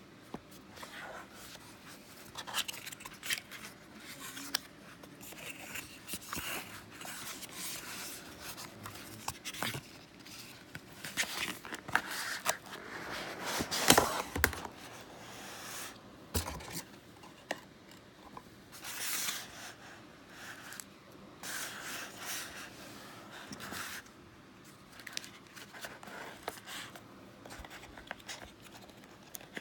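Cardboard packaging of an Echo Dot being opened and handled: irregular rustling, sliding and scraping of cardboard with small clicks, loudest about halfway through.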